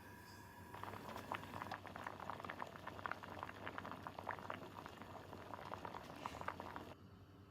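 Liquid bubbling at a boil in a pot, a steady patter of small pops that starts about a second in and cuts off suddenly near the end.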